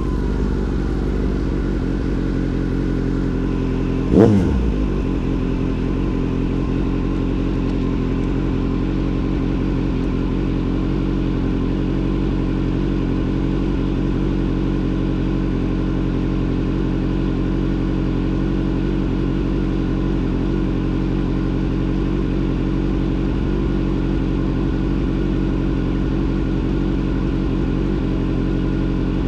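Motorcycle engine running steadily at an even pitch, with one quick throttle blip, a short rev up and back down, about four seconds in.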